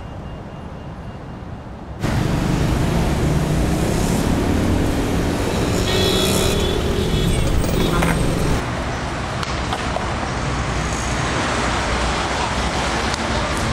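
Outdoor street ambience dominated by steady road traffic noise, cutting in suddenly about two seconds in after a quiet stretch.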